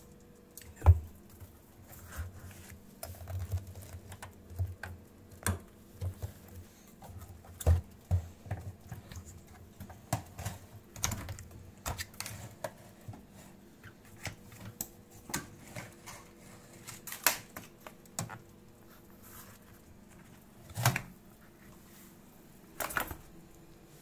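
Irregular clicks, taps and rubbing from hands working at a Miele W 5825 front-loading washing machine's rubber door seal and stainless drum, with a few sharper knocks, the loudest about a second in, over a faint steady hum.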